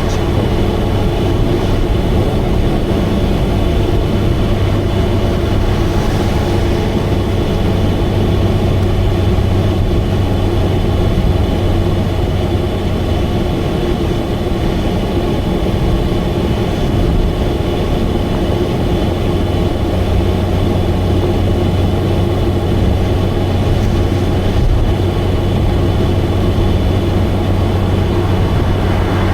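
Subaru Vivio's 660 cc four-cylinder engine and exhaust droning steadily at highway cruising speed, with tyre and road noise. The drone is loud because the exhaust is leaking.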